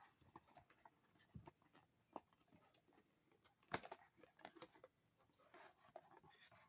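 Faint handling noise of packaging being worked open: scattered light clicks and rustles, with one sharper click a little past halfway.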